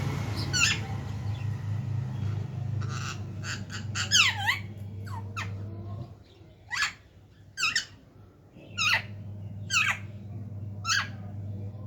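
Parrot giving short, shrill squawks that fall sharply in pitch. There is a cluster of calls a few seconds in, then single calls about once a second, over a low steady hum.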